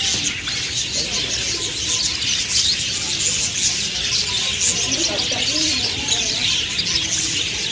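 Many small aviary birds chirping and chattering together in a dense, continuous chorus, with some lower wavering calls about midway through.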